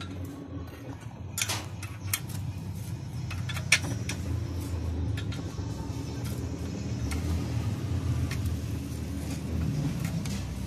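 A thin metal rod clinking and scraping against the burner of a used-oil stove as it is stirred, with a few sharp clinks in the first four seconds. A steady low rumble runs underneath.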